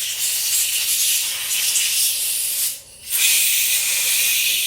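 Compressed air hissing loudly as it is blown through the passages of a Briggs & Stratton carburetor to clear out the cleaner and debris. There are two long blasts with a brief pause between them, about three seconds in.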